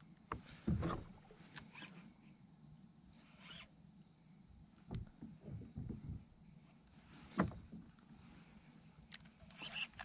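Scattered knocks and water splashes at a kayak as a hooked traíra is brought in, over a steady high chirring of crickets. The loudest knocks come about a second in and again about seven seconds in.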